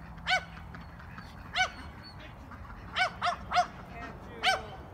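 A dog barking: six short barks, spaced out at first, then a quick run of three about three seconds in.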